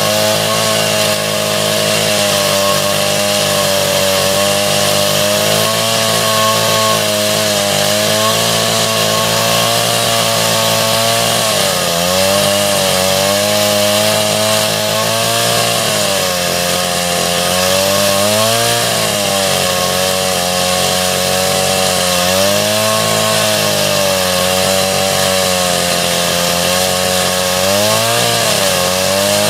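Stihl MS381 two-stroke chainsaw with a 36-inch welded bar ripping a log lengthwise along the grain, running under load. Its engine note sags and recovers several times as the chain bites. The owner puts this down to cutting at too low revs, which let the chain grab.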